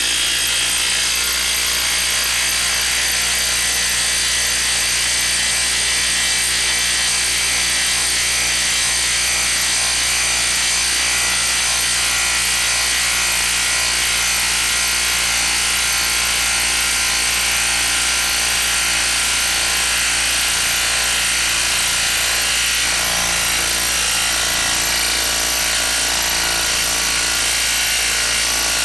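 Hilti brushless impact driver hammering steadily and without a pause as it drives a 10-inch lag screw into a wood stump.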